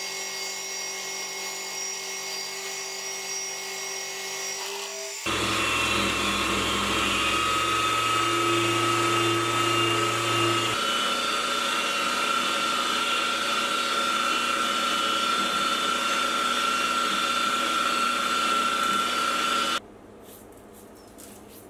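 Milling machine running a roughing end mill through mild steel under flood coolant: a steady whine, louder from about five seconds in. Near the end the cutting stops and chips are brushed off the work with light scratching strokes.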